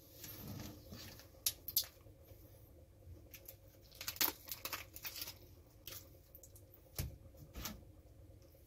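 Cooked lobster shell being cracked and pulled apart by hand, with soft wet tearing of the meat between a few sharp cracks, the loudest about a second and a half in, around four seconds and near seven seconds.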